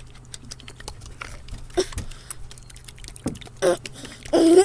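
Light-bulb slime in its plastic container being shaken, giving a run of quick small clicks and soft wet patters. A child's voice cuts in briefly near the end.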